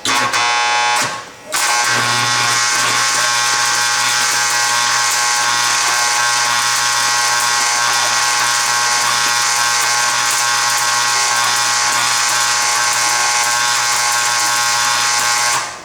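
Stick-welding (SMAW) arc burning on a 1/8-inch E-7018 electrode, DC reverse polarity at 90–110 amps, as one short bead of a backstep weld sequence is laid. The arc is struck, drops out briefly about a second in, restrikes and runs as a steady hiss with an even buzz, then is broken off sharply near the end.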